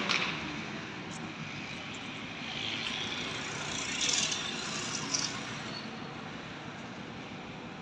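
Steady din of diesel bus engines running, with two short higher-pitched noises about four and five seconds in.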